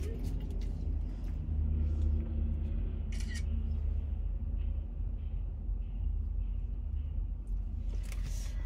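Steady low rumble inside a car's cabin, with brief crinkles of food packaging about three seconds in and again near the end.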